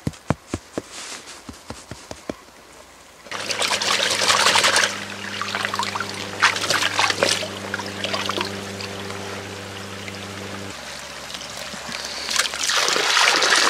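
Water scooped from a shallow creek with a bark vessel and poured back out, trickling and splashing, loudest as it pours near the end. A few sharp taps come in the first two seconds, and a low steady hum sits under the water for several seconds in the middle.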